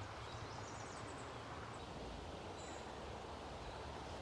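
Steady, quiet outdoor background noise with a few faint, short, high bird chirps.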